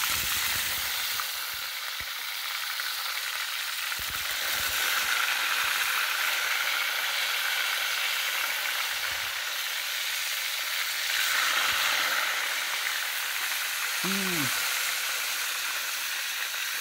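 Unbattered, skin-on tilapia fillets deep-frying in hot oil in a pan: a steady sizzle, with a few soft knocks as more fillets are laid into the oil.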